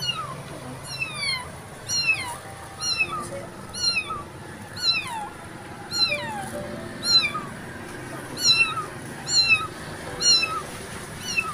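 Young ginger kitten meowing over and over, short high thin cries that fall in pitch, about one or two a second: a hungry stray kitten calling.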